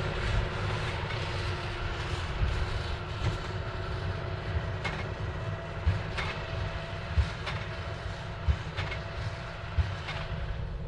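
John Deere 8530 tractor's six-cylinder diesel running steadily under load while pulling a Krone BigPack big square baler, with a sharp knock roughly every second and a bit.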